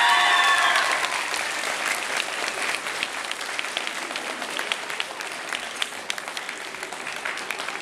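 An audience applauding after a song, with a few shouted cheers from the group fading out about a second in. The clapping then goes on steadily and slowly thins.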